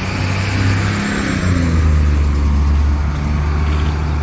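A motor vehicle engine running close by, its low hum dropping in pitch about a second and a half in, then holding steady.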